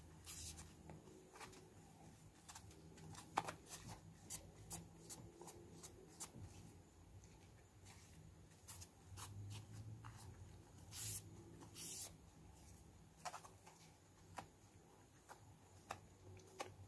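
Faint rubbing and light scratching of a cloth wiping a phone's glass screen, broken by scattered soft ticks from handling the phone.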